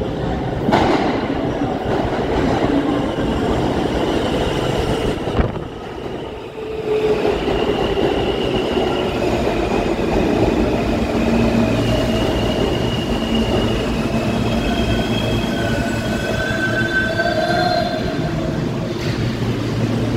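New York City subway train running on steel rails, a steady rumble. From about seven seconds in, the wheels squeal on and off in several high, wavering tones.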